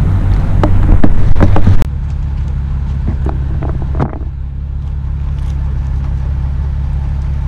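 About two seconds of loud wind rumble on the microphone, then an abrupt cut to the steady low drone of a Ford F-350's turbocharged V8 diesel idling, heard from inside the cab, with a few light clicks.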